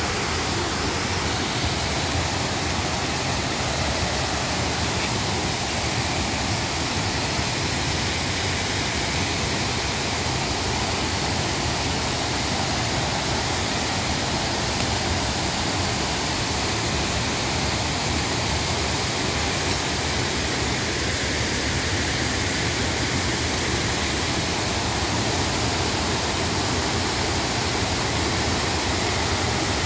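Steady, unbroken rush of a rain-swollen river pouring down a waterfall.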